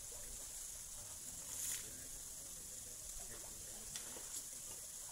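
Steady high-pitched hiss with faint, indistinct voices underneath and a brief louder swell of noise about a second and a half in.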